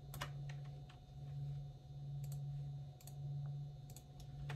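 Scattered sharp clicks of a computer mouse and keyboard as the design is resized in the laser engraving software, over a steady low hum.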